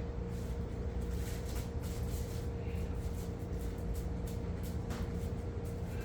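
Steady low background rumble with a faint steady hum and a few light clicks.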